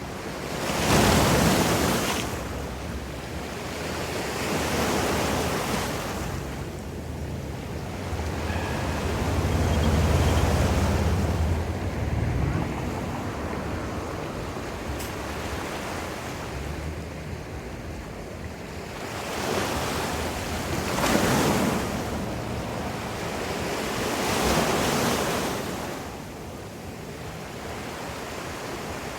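Ocean surf: waves breaking and washing in, surging and receding every few seconds, with a low rumble swelling about ten seconds in. Some wind buffets the microphone.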